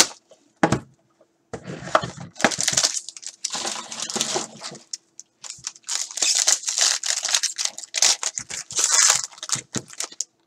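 A trading-card pack's plastic wrapper crinkling and tearing as it is pulled open by hand, in irregular crackling clumps. Two sharp knocks come just before, as the box is handled.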